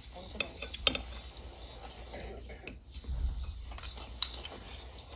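A metal spoon clinking against a ceramic plate: a few sharp clinks, about half a second and a second in and again near the end, with a dull bump about three seconds in.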